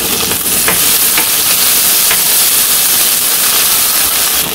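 Sliced onions, green chillies and ginger-garlic paste sizzling steadily in hot oil in a non-stick wok, stirred with a melamine spoon that scrapes across the pan a few times.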